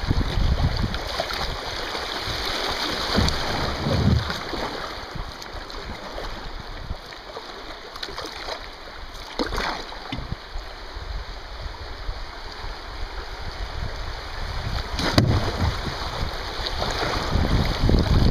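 Shallow river riffles rushing and splashing around a kayak, with wind buffeting the microphone. The water is quieter in the middle and grows louder near the end as the kayak runs into rougher water, with a couple of sharp knocks.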